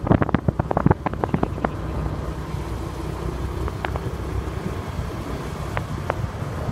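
Ride in a moving road vehicle, heard from on board: steady low engine and road rumble. A quick run of sharp clicks and rattles fills the first second or so, and a few single ticks come later.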